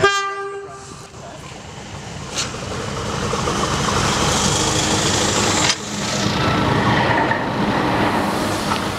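A diesel locomotive sounds one horn note of about a second, then its engine rumble builds as it approaches and runs past hauling passenger coaches, with wheels clattering over the rails near the end.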